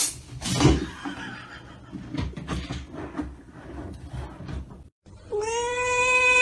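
Cat vocalising amid scattered knocks and bumps. About five seconds in, after a brief cut, a long steady pitched tone starts, its pitch sinking slightly.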